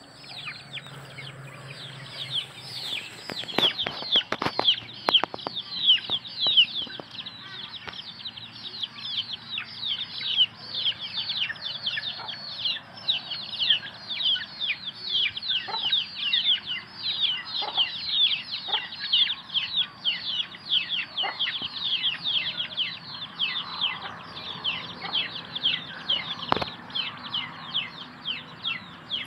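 A flock of young chicks peeping continuously, a dense stream of high, falling chirps several a second, with a cluster of sharp clicks about four to five seconds in.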